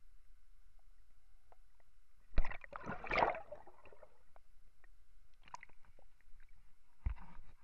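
Water splashing and gurgling around a camera dipped under the surface as a large perch is held and let go: a sharp knock and splash about two and a half seconds in, a burst of bubbling gurgle right after, and another knock and splash near the end.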